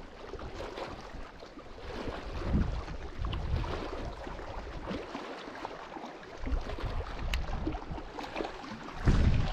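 Wind buffeting the microphone in uneven gusts, loudest near the end, over small waves lapping against a rocky lakeshore.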